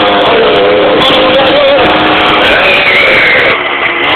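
Moped engine running loud at high revs, its pitch wavering up and down.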